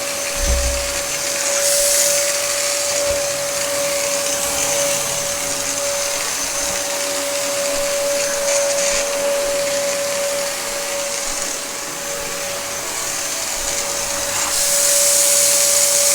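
Dyson upright vacuum cleaner running, its motor giving a steady whine over the rush of air, with the airflow hiss growing louder near the end.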